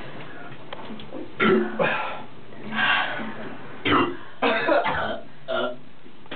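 A person coughing and clearing their throat in a series of short rough bursts starting about a second and a half in, after chugging a shotgunned drink that went down hard.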